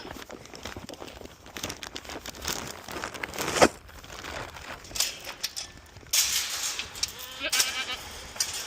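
Rustling and scattered knocks, with one sharp knock a little over three and a half seconds in and a goat bleating briefly near the end.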